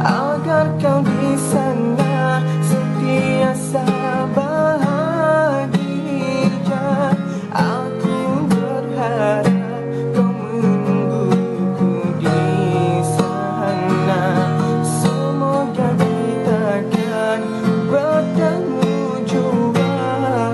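Music: an instrumental break of a slow pop ballad, acoustic guitar chords under a melody line with vibrato.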